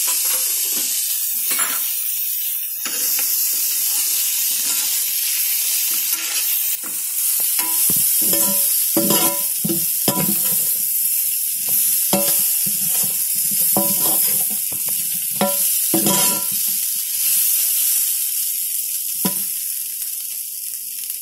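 Potatoes and onion sizzling in hot oil in a kadai while a metal ladle stirs and tosses them, scraping and knocking against the pan. The knocks ring briefly and come thickest in the middle, over a steady frying hiss.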